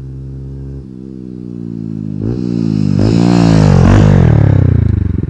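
Honda CBF motorcycle with an Akrapovič exhaust accelerating up to and past, its note rising in pitch with several short breaks. The note is loudest as it passes about four seconds in, then drops in pitch.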